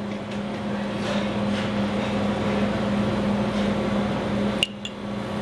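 Steady mechanical hum and hiss, like a kitchen fan running, with one sharp click near the end.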